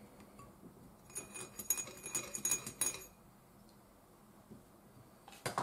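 Metal spoon clinking rapidly against ceramic tableware for about two seconds, as when stirring, with a couple of light knocks near the end.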